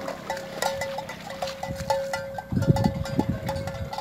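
Bells on a grazing herd of water buffalo clinking at one fixed pitch, several strokes a second. There is a burst of low rustling and crunching about two and a half seconds in.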